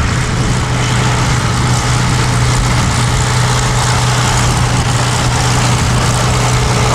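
Hawker Hurricanes' Rolls-Royce Merlin V12 piston engines running, a loud steady deep drone that holds unchanged.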